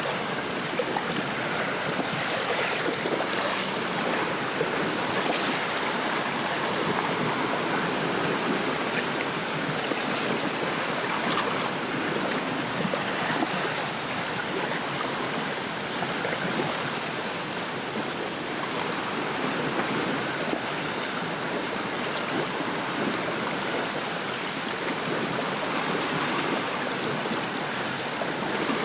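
Small lake waves lapping and splashing at the shore, with wind blowing through the reeds: a steady wash of water noise full of tiny splashes, with no single event standing out.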